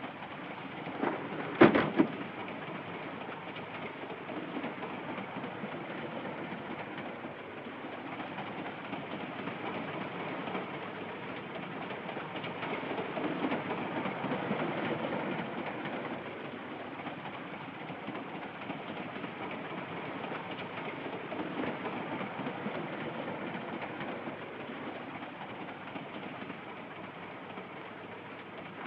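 Steady running noise of a moving railway passenger carriage: an even rail rumble with slow swells in level, heard through an old film soundtrack with a dull, cut-off top end. A brief, sharper sound about two seconds in is the loudest moment.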